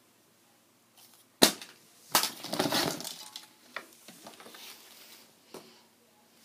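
Nescafé coffee packaging being handled and opened: one sharp knock, then about a second of crackling and crunching, then a few lighter clicks and rustles.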